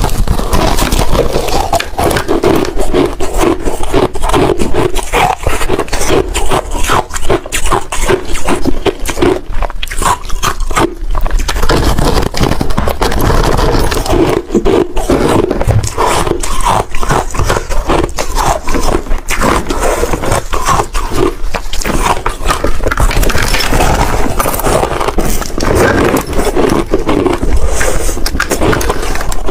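Hard shaved ice being bitten and chewed close to the microphone: continuous, dense crunching and crackling.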